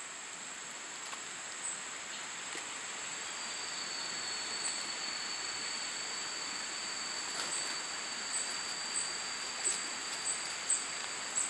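Rainforest insects: a steady, high-pitched drone, joined about three seconds in by a second, lower steady whine, with short high chirps scattered through and coming more often near the end.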